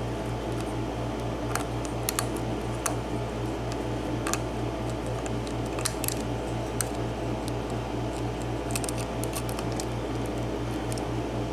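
Faint, irregular metallic ticks and clicks of a lock pick and tension tool working the spool pins of a 7-pin mortise lock cylinder. Under them runs a steady low hum.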